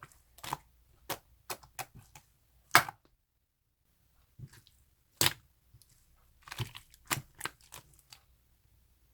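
Red marbled slime being squeezed and worked by hand, making irregular sticky pops and crackles. Two of the pops, about three and five seconds in, are louder than the rest, and there is a brief pause between them.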